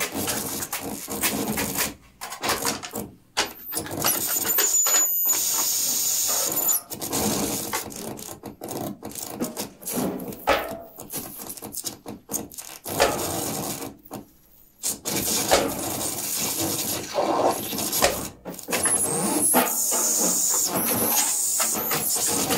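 Improvised experimental music: a restless mix of scraping, rubbing and clattering sounds full of sharp clicks, broken by sudden brief drop-outs. A thin, steady high tone sounds a few seconds in and again near the end.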